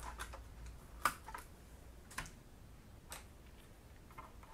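Faint scattered clicks and taps, about six in a few seconds, the strongest about a second in: fingers and a small plastic tool working the LCD cable connector loose from a laptop motherboard.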